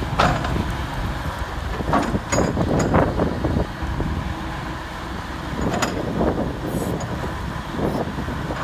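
Komatsu PC78US-8 excavator's diesel engine running as a steady rough rumble, with several louder surges about two, three and six seconds in.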